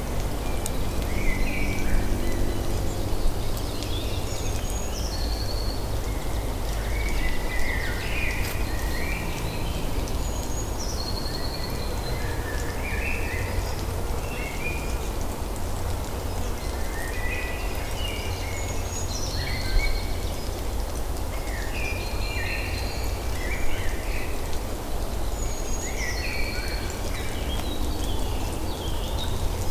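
Outdoor ambience: birds chirping in short repeated phrases every few seconds over a steady low rumble.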